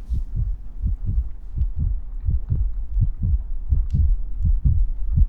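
Heartbeat sound effect: deep, even thumps at about three a second.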